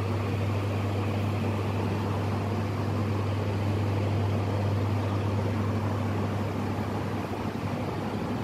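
Steady low hum under an even hiss from the shop's running cooling equipment (air-conditioning and freezer units), constant throughout with no distinct events.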